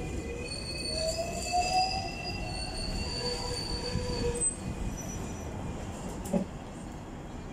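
Hong Kong double-decker electric tram's steel wheels squealing on the rails: a high, slightly gliding squeal for about four seconds over the low rumble of the ride, then a single clunk about six seconds in.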